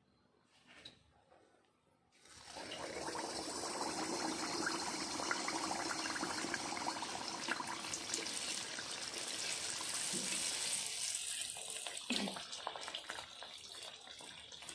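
Water running steadily, starting about two seconds in and easing off near the end.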